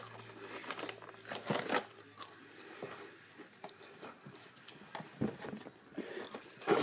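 Crackers being bitten and chewed: faint, scattered crisp crunches and crackles, with a louder bump near the end.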